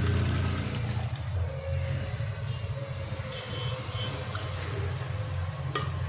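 Filter coffee poured back and forth between a steel tumbler and dabara to cool and froth it, a stream of liquid splashing into the metal cup, over a steady low hum.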